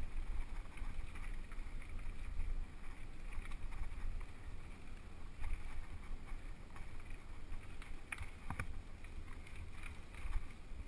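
Mountain bike ridden fast down a dirt trail, heard from a camera riding on it: a continuous low wind rumble on the microphone, with the bike rattling and knocking over bumps, most sharply about eight seconds in.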